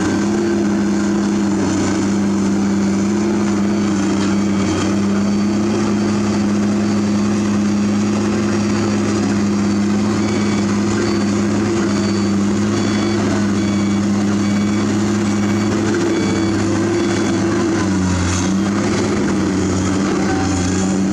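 Komatsu PC200 hydraulic excavator's diesel engine running steadily under digging load, with a steady hum that dips briefly in pitch near the end.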